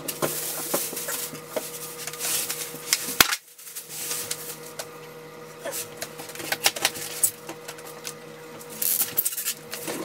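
Irregular clattering and knocking as a newly delivered washing machine and its packing are handled at its base, over a steady hum.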